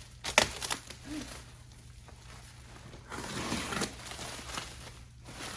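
A cardboard box being cut open and handled: a few sharp knocks near the start, then rustling and scraping of cardboard around three seconds in.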